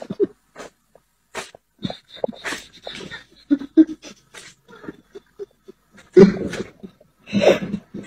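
A cat making a run of short, breathy animal sounds, the two loudest near the end.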